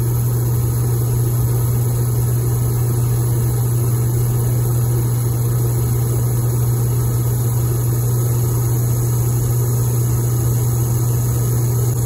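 Oil-burner motor of a vintage diesel furnace running steadily with a constant low hum, turning the fuel pump while the line is being bled. The pump is not drawing any fuel, so the burner runs without lighting.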